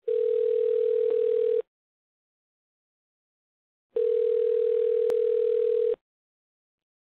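Telephone ringing tone heard down a phone line: a steady single-pitched tone sounding twice, about one and a half and then two seconds long with a pause of about two seconds between, with the narrow, thin sound of a phone call.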